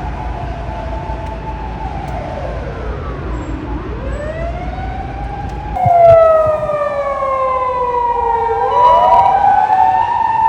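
Emergency vehicle's wailing siren, sliding slowly down and back up in pitch. About six seconds in it becomes suddenly much louder and closer, with a long downward slide and a rise near the end.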